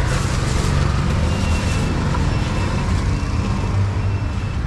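Steady low rumble of street traffic, with a short plastic-bag rustle at the very start.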